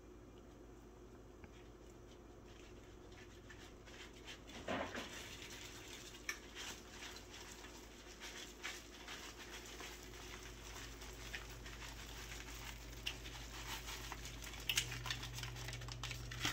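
Shredded bar soap pattering and crackling as it is tipped and scraped off a paper plate into a pot of boiling water, with small taps on the plate, starting a few seconds in. A low steady hum runs underneath.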